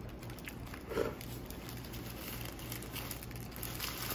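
Paper burger wrapper crinkling faintly in the hands, with small wet mouth sounds of licking and chewing food off the paper, and a brief mouth sound about a second in.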